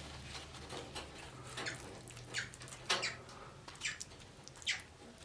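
A few short, soft scrapes and rustles from handling taco fillings and utensils, spaced about a second apart, over a faint low hum.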